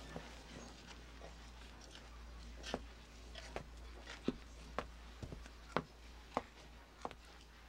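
Footsteps: a steady series of sharp steps, about two a second, starting a little under three seconds in, over a faint low hum.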